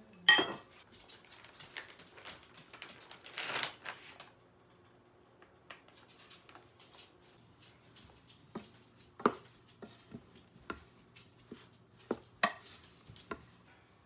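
Kitchen utensils clanking and scraping against a bowl and a stainless steel pot. There is a sharp, loud clank about half a second in, then a few seconds of scraping. Near the end come scattered knocks and clinks as riced potato and flour are stirred into gnocchi dough in the pot.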